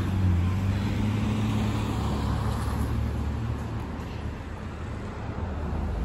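Motor vehicle engine running close by, a steady low hum over road and outdoor noise that fades out about halfway through.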